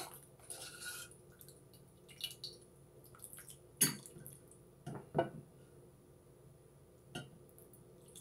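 Chicken noodle soup sloshing and dripping from a plastic ladle into a stainless steel pot. There are a few sharp knocks of the ladle in the pot: one about four seconds in, two close together a second later, and one near the end.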